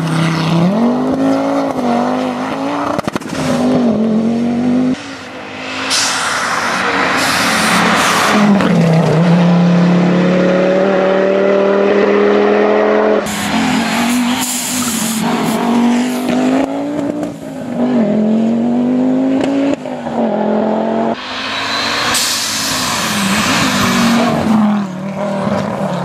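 Audi Quattro rally car's turbocharged five-cylinder engine revving hard through the gears on several passes, its pitch climbing and then dropping at each gear change.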